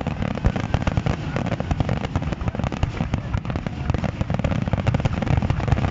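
Fireworks going off in a dense barrage: many rapid sharp cracks and pops over a steady low rumble of bangs, with no pause.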